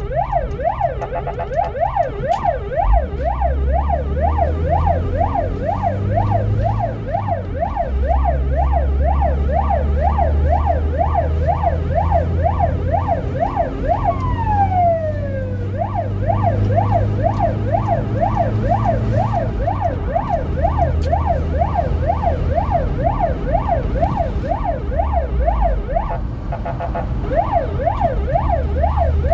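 Ambulance siren in fast yelp mode, rising and falling about twice a second, changing about halfway through to one slow falling sweep before the yelp resumes. Heard from inside the ambulance's cab, with the engine's low rumble underneath.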